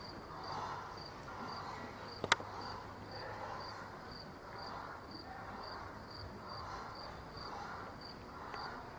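Soft swishes about once a second from a horse trotting on arena sand, under a high, even chirp that repeats about twice a second. A single sharp click comes a little over two seconds in.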